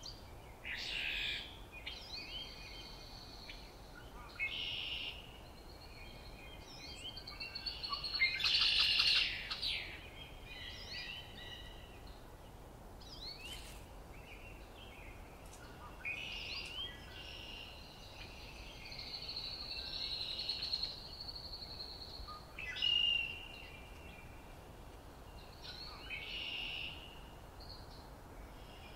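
Several songbirds singing in a dawn-chorus-like mix, short varied phrases overlapping one another over a faint steady background hiss; the loudest is a rapid trill about eight to ten seconds in.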